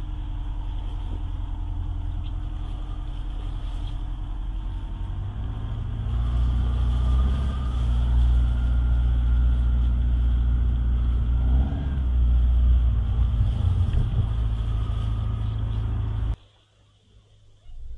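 An engine runs steadily, then rises in pitch and gets louder about five to six seconds in. It cuts off abruptly near the end.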